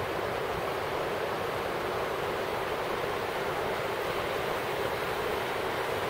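Steady rush of river water tumbling over rocks, an even, unbroken noise.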